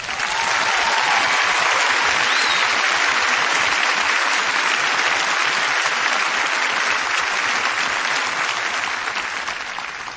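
Applause: many hands clapping in a dense, steady patter that begins suddenly and slowly fades near the end.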